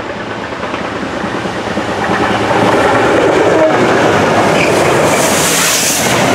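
A rail head treatment train, a diesel locomotive hauling water tank wagons, approaching and passing directly below. It grows louder over the first couple of seconds, then stays loud as the locomotive goes underneath.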